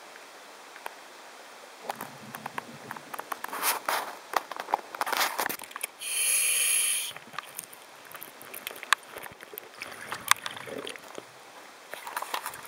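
Underwater sound through a diver's camera housing: scattered clicks, crackles and scraping against rock, with one loud hiss of a scuba regulator breath lasting about a second, six seconds in.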